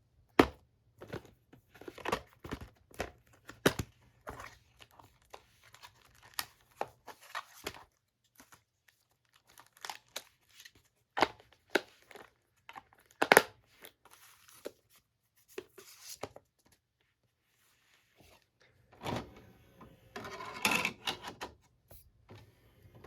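Irregular sharp clicks and crackles, like handling or crinkling noise, scattered through and bunching into a denser crackle about three quarters of the way in, over a faint steady low hum.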